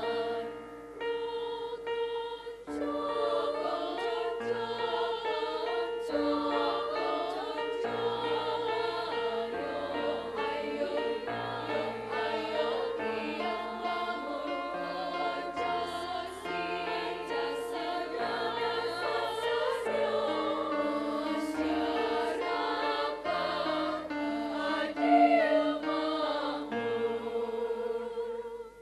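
Female choir singing a song in several parts, with held, overlapping notes over a low bass line that changes note every second or two.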